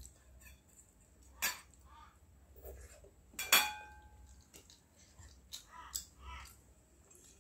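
Stainless-steel dishes clinking as fingers pick food from a plate, with one sharp ringing clink about three and a half seconds in, and soft chewing sounds in between.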